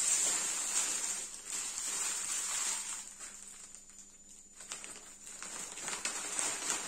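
Small plastic bags of diamond-painting resin drills being handled, the plastic crinkling and rustling, quieter in the middle of the stretch.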